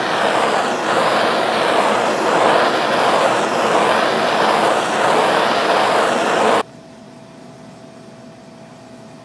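Handheld gas torch burning with a steady rush as it heats a line along a PVC pipe to soften it; it cuts off abruptly about six and a half seconds in.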